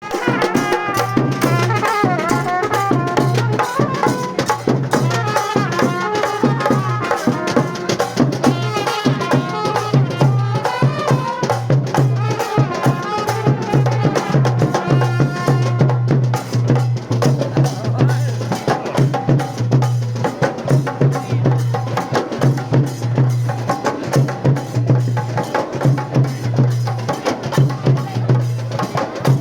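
Traditional Sri Lankan procession drumming: rapid, steady drum strokes with a wavering melody line over them, strongest in the first half.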